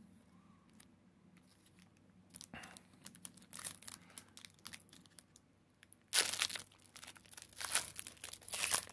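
Foil wrapper of a Panini Mosaic basketball card pack crinkling in the hands, then torn open about six seconds in, with loud crackling as the foil is pulled apart.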